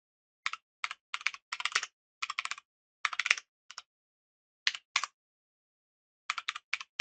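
Computer keyboard typing in quick bursts of keystrokes separated by short pauses.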